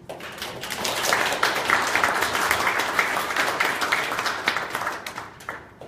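Audience applauding: many hands clapping, starting suddenly, building within the first second, then dying away into a few scattered claps near the end.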